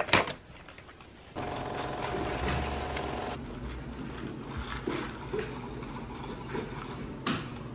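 A sharp click at the start, then, about a second and a half in, a loud machine whir with a steady hum that cuts off abruptly after about two seconds. Café background noise follows, with light clicks and rattles of ice as a straw is pushed through a plastic cup lid and stirred.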